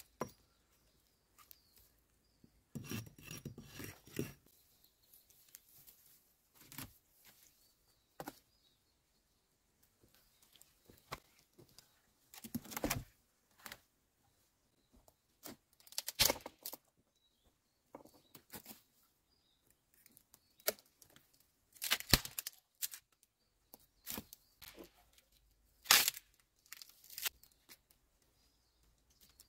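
Dead branches being broken and pulled out of a tangle of brush by hand: sharp cracks and snaps a few seconds apart, with crackling rustles of twigs and needles between them.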